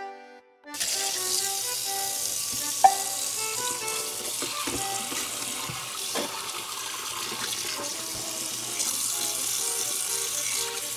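Tap water pouring into a stainless steel sink and splashing over a gutted fish as hands rinse out its body cavity. It starts about a second in. One sharp click about three seconds in is the loudest moment.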